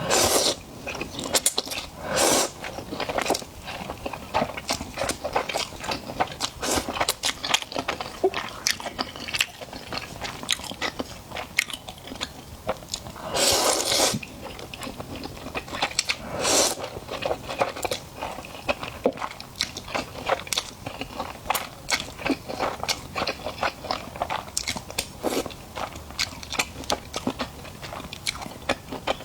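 A person eating close to the microphone: a steady run of crunchy bites and chewing clicks, with a few louder, longer noisy stretches, the longest lasting about a second, midway through.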